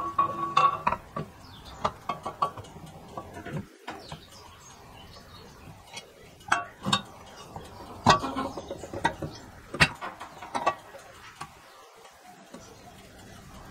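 Powder-coated metal mower body parts clinking and knocking together as the handle bracket is fitted onto the deck, with a ringing metal clink at the start, then scattered sharp knocks and taps.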